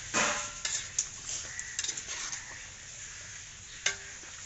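Metal spoon scraping and clinking against a cooking pot as fish pieces are stirred into masala, in scattered short clicks and scrapes with a sharper clink near the end. A brief call-like sound comes right at the start.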